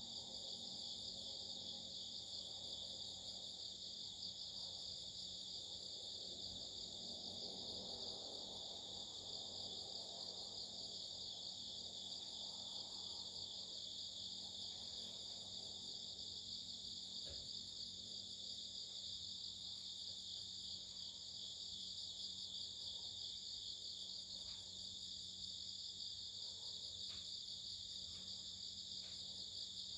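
A chorus of insects singing at night, several high, steady trills overlapping without a break.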